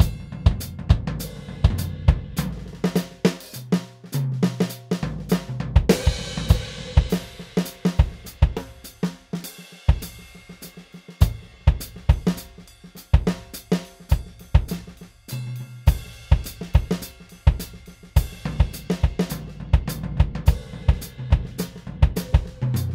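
ATV aDrums Artist electronic drum kit played with its TruAcoustic acoustic-style kit sound: a busy groove of kick, snare, hi-hat and cymbals, with a cymbal crash ringing out about six seconds in.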